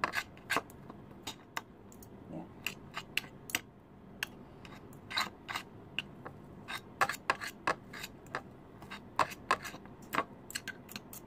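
Two metal forks scraping and clicking against a plate as they shred cooked meat, in quick, irregular taps.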